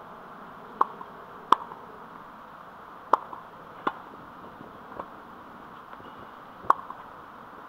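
Tennis ball impacts with a racket and the hard court: about six sharp pops, irregularly spaced a second or so apart, over a steady outdoor hiss.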